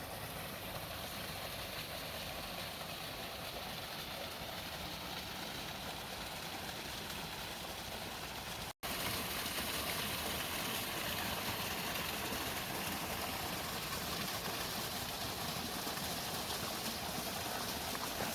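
Steady rushing water of a tall waterfall, a continuous hiss and rumble. There is a cut about nine seconds in, after which the falling water is a little louder.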